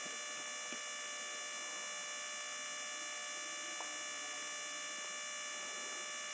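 Steady electrical hum with a high-pitched whine, with a couple of faint clicks.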